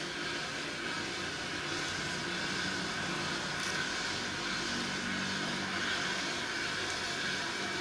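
Steady mechanical drone and hiss from a liquid nitrogen storage and filling plant, with a steady high tone running through it.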